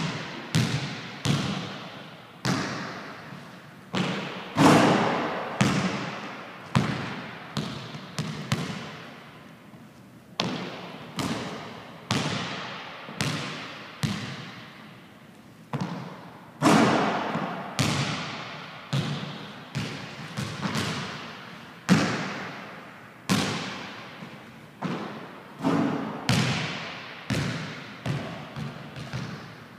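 Basketball bouncing on a hardwood gym floor, dribbled and rebounding between jump shots. The thuds come irregularly, with a couple of short pauses, and each rings out in a long echo in the empty gym.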